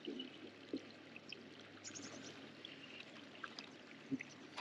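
Faint, steady trickle of running water at the trout pond, with a few faint high chirps and two soft knocks.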